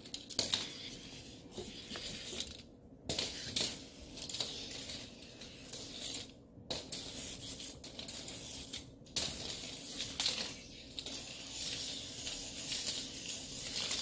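A small plastic toy on a cord clattering and scraping across a wooden floor as it is dragged and pounced on by a kitten, with scattered light rattling clicks. The sound drops out briefly three times.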